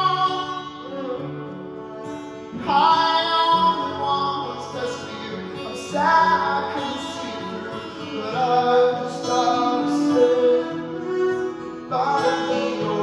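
Live acoustic music: acoustic guitar and violin playing, with a man's voice holding long wordless notes that start about two and a half, six and twelve seconds in.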